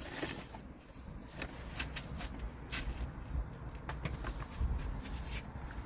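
Irregular clicks and knocks of hand tools on metal under a car, as the rear suspension's toe-adjustment bolt is worked loose.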